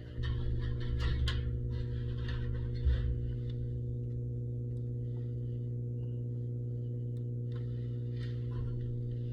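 A steady low electrical hum, with a few light clicks and knocks of metal parts being handled in the first three seconds, the last and loudest about three seconds in.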